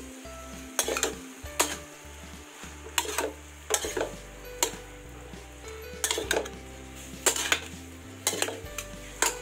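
Metal spatula scraping and clanking against a wok as squid and broccoli are stir-fried, in repeated irregular strokes about once a second, over the sizzle of the food in the hot pan.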